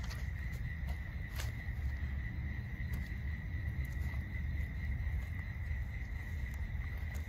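Crickets trilling steadily at dusk, one high even tone throughout, over a constant low rumble, with a few soft footsteps on grass and leaf litter.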